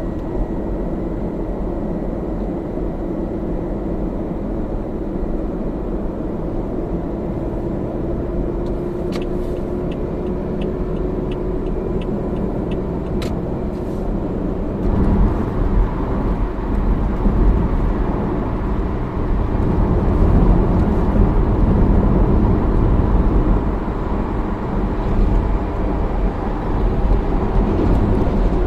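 Toyota Camry (AVV50) driving, with road rumble and a steady low hum that slowly rises in pitch. The noise comes from the left front and is the sign of a worn, age-degraded bearing on the drive shaft. A brief run of light ticks, about two a second, comes about a third of the way in, and the rumble grows louder and rougher about halfway through.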